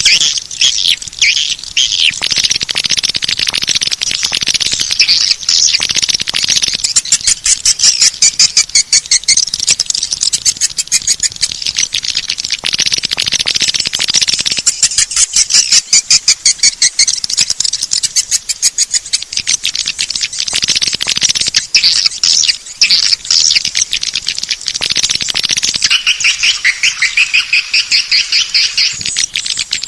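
Swiftlet lure call: a recorded track of edible-nest swiftlet twittering, with fast chattering trills of high chirps going on without a break, of the kind played to draw swiftlets into a nesting house.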